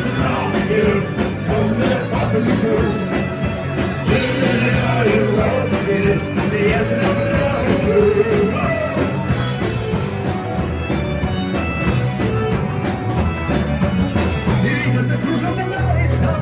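Rock music playing, with singing.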